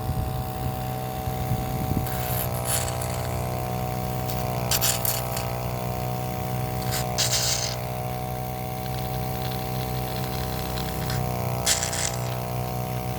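Motor of a honey suction machine running steadily while stingless-bee hives are harvested. Four times a brief hissing slurp is heard as the nozzle draws in honey and air, and the motor's pitch dips slightly with each slurp.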